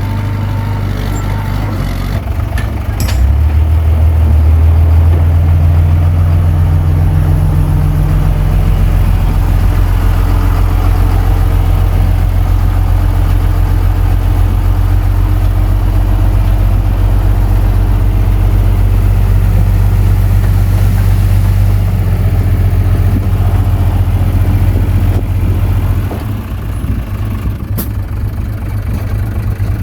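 Komatsu D21P bulldozer's diesel engine running steadily. It grows louder about three seconds in and drops back near the end.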